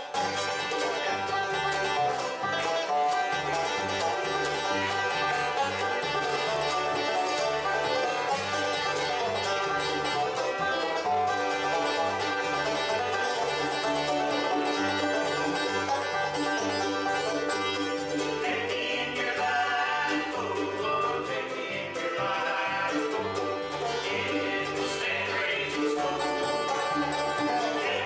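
Bluegrass band playing: five-string banjo, fiddle, mandolin, acoustic guitar and upright bass, the bass keeping a steady alternating two-note pattern underneath.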